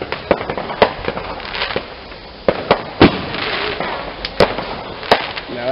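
Ground fountain firework hissing steadily as it sprays sparks, with several sharp cracks and pops through it, the loudest about three seconds in.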